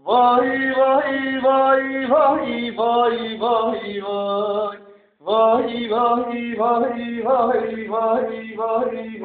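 A man singing unaccompanied, without clear words: short rhythmic syllables held on a nearly steady pitch, like a chant, in two phrases with a breath about five seconds in.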